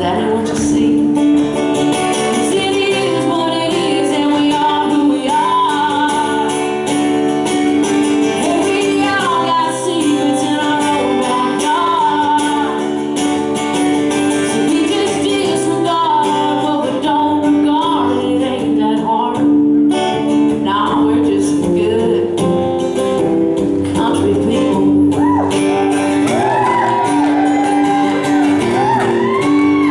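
Live country song played by a band with guitar, with a voice singing over it, echoing in a large hall.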